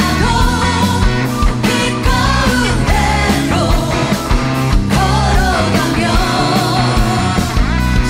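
Live praise music: women singing a worship song into microphones over a full band with a steady drum beat.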